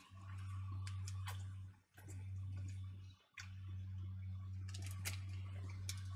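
Soft, scattered clicks of someone chewing a chewy peanut-and-caramel candy bar, over a steady low hum that cuts out briefly twice, at about two and about three seconds in.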